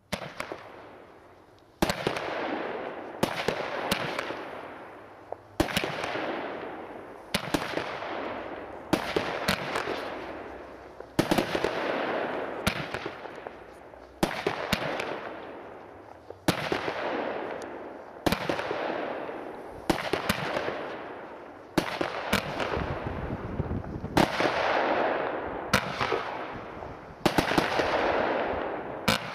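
Consumer fireworks battery, the 24-shot 'Apocalypse' cake, firing shot after shot: a sharp bang about every one and a half seconds, each followed by a crackle of breaking stars that fades before the next.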